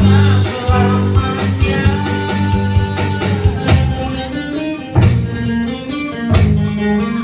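Live band playing an instrumental passage of a blues-rock tune: strummed guitar over held bass-guitar notes, with sharp drum hits about every second and a half in the second half.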